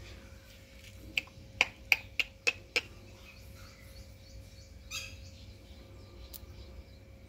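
Indian ringneck parakeet giving a quick run of six short, sharp chirps in about a second and a half, then one softer call a few seconds later.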